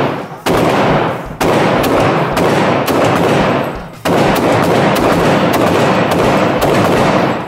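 Pistol fired in a rapid string of shots, often less than a second apart. Each crack rings on in the echo of the indoor range.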